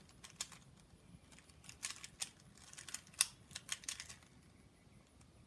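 A Rubik's cube being twisted by hand: quick plastic clicks and clacks of the layers turning, in loose clusters as a sequence of moves is run through.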